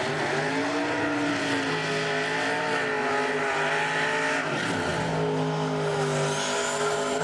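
Twin-turbocharged 1957 Chevrolet drag car's engine held at high revs through a burnout, with the rear tyres spinning. The revs dip briefly about halfway through, then hold steady again.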